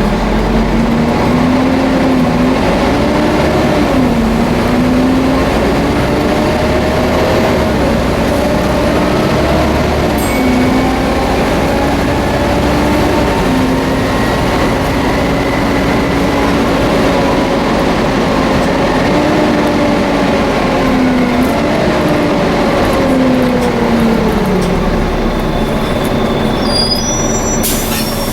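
Volvo B7TL double-decker bus under way, with a loud hoover-like whine over the engine. The whine rises and dips several times as the bus pulls through its gears, then falls away about 24 seconds in as it slows.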